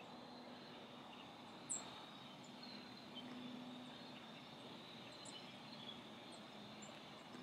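Faint evening outdoor chorus: a steady high insect trill, like crickets, with a few short, high bird chirps scattered through it, the clearest about two seconds in.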